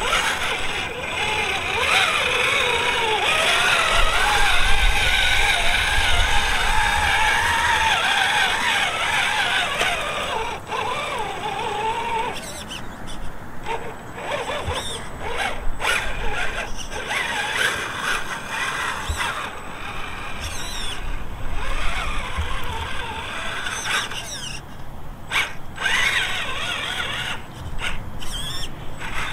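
Electric drive of a Redcat Gen9 1/10-scale RC trail truck whining as it crawls, its pitch wavering up and down with the throttle. About twelve seconds in the whine breaks into shorter spurts, with sharp crackles of dry grass stalks under the tyres.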